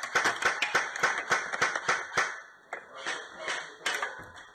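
Airsoft gunfire: a rapid run of sharp cracks, about six or seven a second, thinning to scattered shots after about two seconds.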